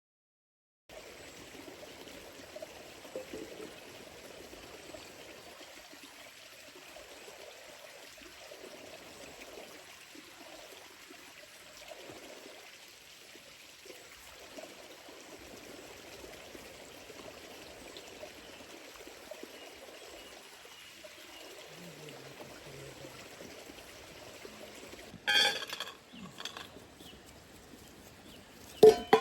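Steady trickling of water, starting abruptly about a second in. Two sharp, loud knocks come near the end, the second one louder.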